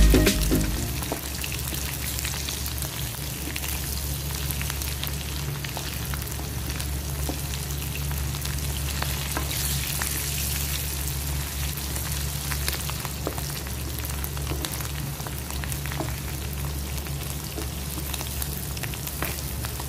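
Dried anchovies (dilis) frying in hot oil: a steady sizzle with scattered small pops and crackles, over a low steady hum.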